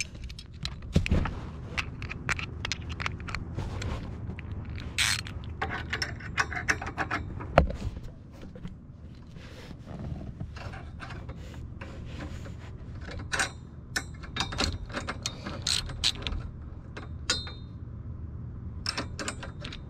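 Socket ratchet and open-end wrench tightening the steel harness bar's clamp bolts: runs of ratchet clicking, with metal tools clinking against the hardware.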